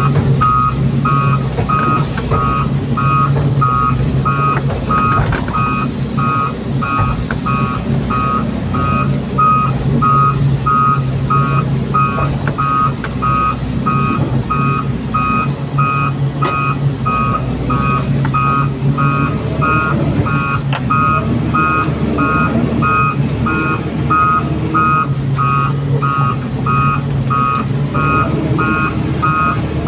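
Hydraulic excavator's diesel engine running steadily under load while the bucket digs soil, heard from inside the cab, with the machine's warning beeper sounding evenly about twice a second throughout.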